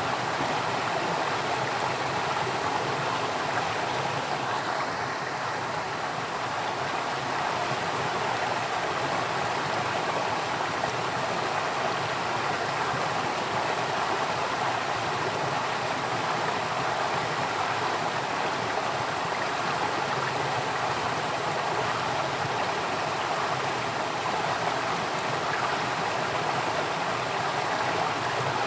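Flowing water, a steady even rush with no breaks or changes.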